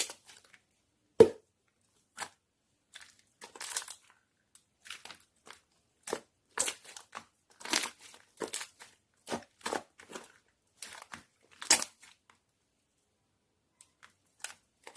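Slime being pressed, stretched and squished by hand, giving irregular crackling and popping sounds, with one sharper pop about a second in.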